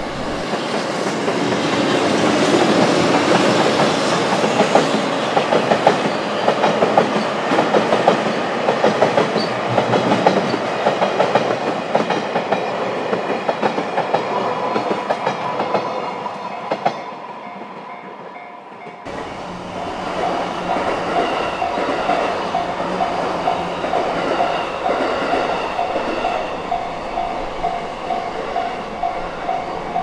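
A train passing with a rapid clickety-clack of wheels over rail joints, fading away about seventeen seconds in. From about nineteen seconds in, a Japanese level crossing's electronic warning bell rings in steady repeated strokes as the crossing closes.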